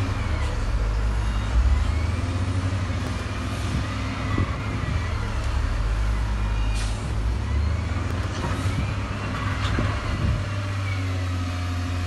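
Heavy diesel earthmoving machinery running: a steady low engine drone, with high-pitched squeals coming and going over it several times and a few short clicks and hisses.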